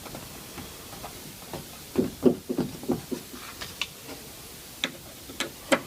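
Light clicks and knocks of the door lock mechanism and its fixing screws being handled and fitted inside a car door: a quick cluster about two seconds in, then a few single sharp clicks near the end.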